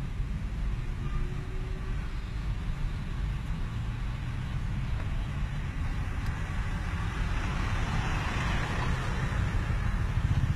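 Road traffic on a city street: a steady low engine and tyre rumble, with a car passing close by whose noise swells in the second half.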